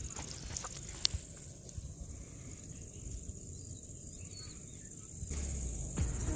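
Crickets keeping up a steady high-pitched buzz over a low outdoor rumble, with a single sharp click about a second in.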